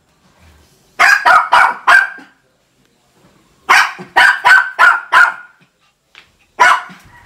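A small dog barking in quick runs of about three barks a second: four barks about a second in, six more in the middle, and a single bark near the end.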